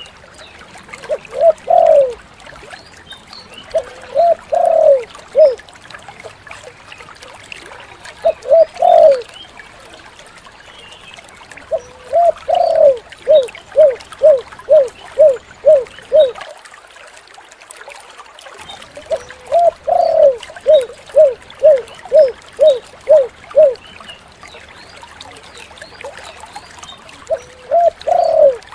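Spotted dove (tekukur) cooing: phrases of a drawn-out opening coo followed by a quick run of short coos, up to about seven, repeated about six times with pauses between.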